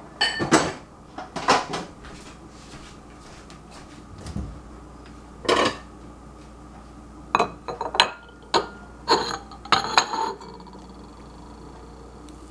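Crockery clattering: a cut-glass bowl and a china plate knocked together and set down on a tiled counter, in a string of sharp separate clinks and knocks, busiest in the second half.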